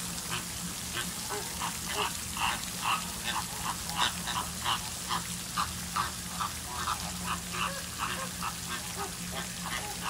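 A flock of flamingos and ducks calling nonstop, with short calls coming two or three a second and overlapping. Under them runs the steady hiss of a pond fountain's spray.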